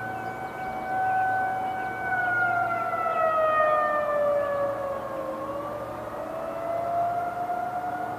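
Federal Signal 2001-130 and 2001SRN outdoor warning sirens sounding a steady alert tone for a monthly test, heard at a distance. The loudest tone sags in pitch a couple of seconds in, bottoms out past the middle and climbs back, while the level swells and fades as the rotating sirens sweep around.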